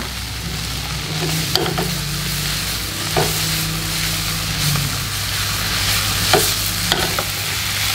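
Green chili mixture sizzling in hot oil in a pan while it is stirred. A utensil knocks and scrapes against the pan a few times.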